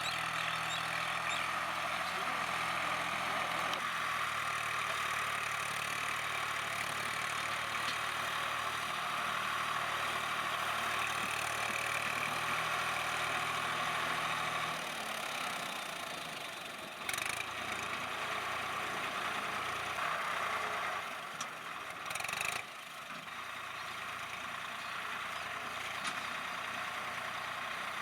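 Swaraj 960 FE tractor engine running steady. About halfway through its low hum drops away, and a few short louder bursts come after.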